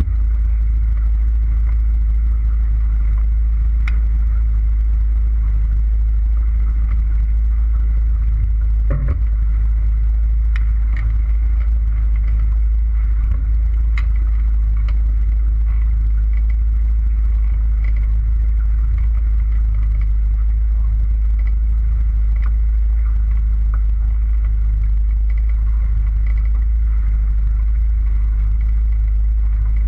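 Motorboat running at a steady cruising speed: a constant low rumble of engine and hull moving through the water, with a few light knocks, around 4, 9 and 14 seconds in.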